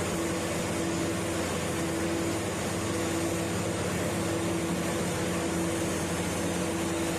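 Railway track tamping machine running, a steady drone with a constant hum.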